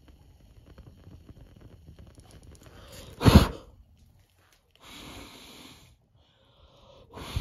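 Small fire on a die-cast model Volkswagen Beetle crackling faintly, then, a little after three seconds in, a short loud rush of air puts the flames out. Two softer spells of hissing air follow.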